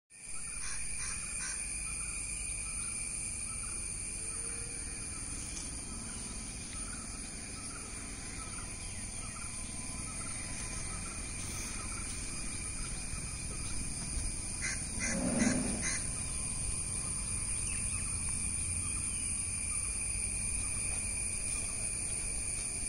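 Rural outdoor ambience: a steady, high-pitched insect drone with birds calling, including a short chirp repeating about once a second and one brief, louder call about two-thirds of the way in.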